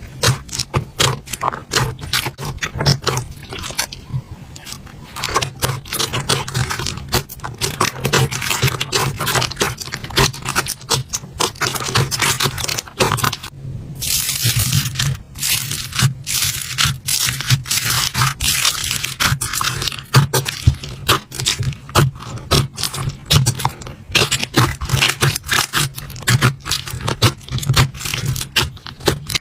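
Slime being handled: a dense, continuous run of crackling clicks and pops, with a brief pause about halfway through.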